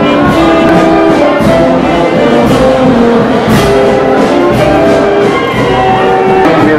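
Brass band music: held brass notes moving through a melody, with percussion strokes over it.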